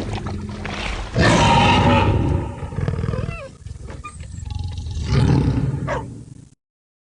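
Film sound effect of a Tyrannosaurus rex: a loud roar about a second in, quieter gliding cries, then a second roar around five seconds in. The sound cuts off abruptly near the end.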